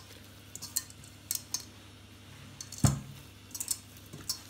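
Scattered light clinks and taps of a hand working bread dough in a stainless steel mixer bowl, with one heavier knock about three seconds in.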